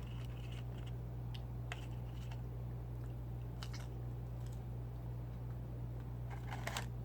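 Close-up eating sounds: someone chewing fried food, with a few short crunches and mouth clicks here and there and a small cluster near the end. A steady low hum runs underneath.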